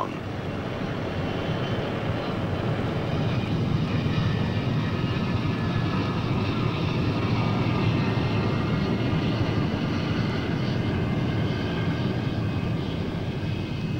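Jet engines running steadily, a high whine over a low rumble, growing a little louder over the first few seconds.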